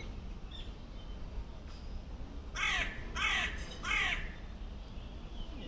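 Three harsh, caw-like bird calls in quick succession, each falling in pitch, about halfway through, over a steady low background rumble.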